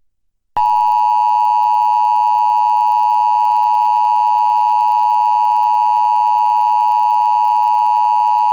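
Emergency Alert System attention signal: the two-tone 853 and 960 Hz alert tone, starting about half a second in, held steady for about eight seconds, then cutting off abruptly.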